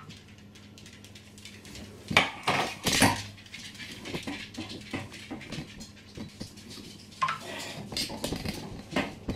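Round metal baking tins clattering as they are pulled off the oven's wire rack and set down on a kitchen worktop, with a few sharp knocks about two to three seconds in, lighter clicks and scrapes after, and another knock near the end.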